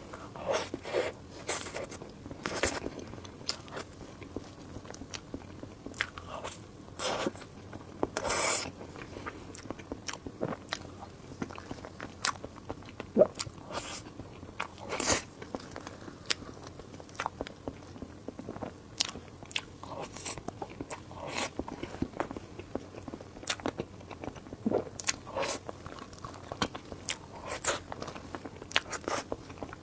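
Close-miked eating: a person biting and chewing, with irregular sharp crunches and clicks.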